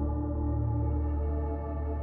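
Slow ambient background music of long held, bell-like tones over a steady low drone.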